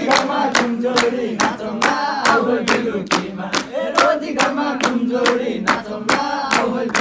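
A group of men singing a Nepali dohori folk song together while clapping their hands in a steady beat, about four claps a second.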